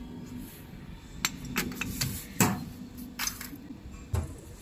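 Scattered sharp metallic clicks and knocks, about half a dozen, the loudest about halfway through: a heavy-duty multi-pin industrial plug on a corrugated-conduit cable being handled and pushed into the socket on a machine's side panel. A faint steady hum runs underneath.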